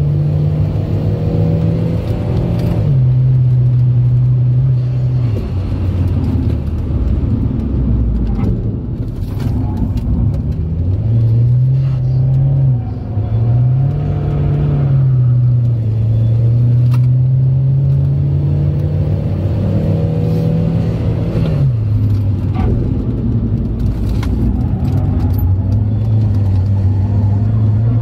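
Turbocharged Saab engine heard from inside the cabin, pulling hard at around 3,500–4,300 rpm under boost. Its note drops as the throttle is lifted for corners, a couple of times early on and again about two-thirds through, and climbs again under power in between.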